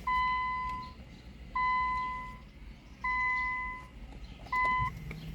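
Electronic beeping: four steady, even-pitched beeps about a second and a half apart, the last one shorter.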